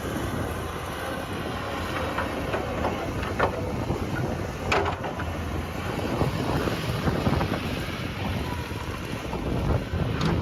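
Heavy machinery running with a steady rumble, wind buffeting the microphone, and a few short sharp knocks or squeaks.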